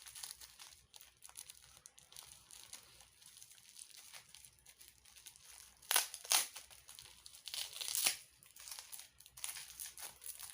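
Bubble wrap being crinkled and pulled open by hand, a steady soft plastic rustling with a few louder crackles about six and eight seconds in.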